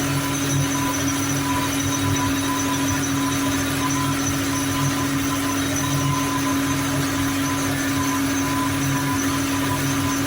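Hymac 370C excavator's newly fitted D-144 air-cooled four-cylinder diesel running at a steady speed, with a constant whine over the engine note.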